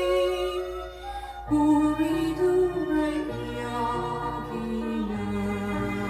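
A Korean folk song recording played from a vinyl LP: a held note gives way, about a second and a half in, to a moving melody over a stepping bass line.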